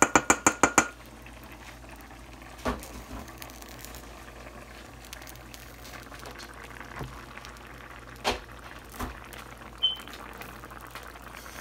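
A rapid run of sharp, ringing ticks for about the first second, then a pan of food bubbling faintly on the stove, with a few knocks of a utensil against the pan.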